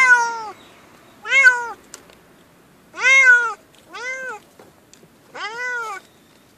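Domestic cat meowing from inside a pet carrier: five loud meows a second or two apart, each rising and then falling in pitch.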